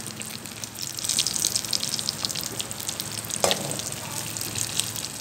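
Chicken tikka pieces sizzling and crackling in a little hot oil in a metal pan, being browned on their second side. A metal spatula knocks against the pan once, loudly, about three and a half seconds in.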